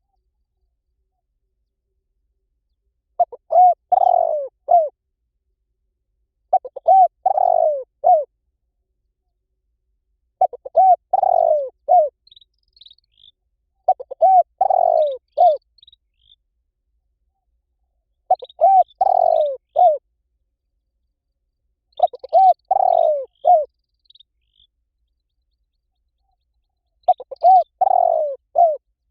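A bird calling over and over: seven phrases of a few quick notes each, about every four seconds, with fainter, higher chirps from another small bird in between.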